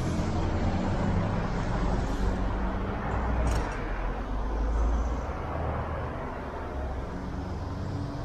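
Road traffic at an intersection: cars pass close by with engine and tyre noise, a low rumble that swells and then eases after about five seconds. A short high hiss comes about three and a half seconds in.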